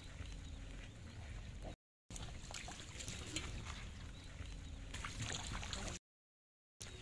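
Shallow muddy water sloshing and splashing as a fish thrashes in it, with scattered sharp splashes over a steady watery hiss. The sound cuts out to silence twice, once about two seconds in and again near the end.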